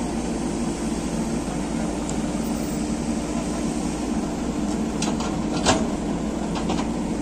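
Steady diesel engine drone from the excavator and pickup as the pickup is pulled back onto the track by a strap. A few sharp clicks or knocks come about five seconds in.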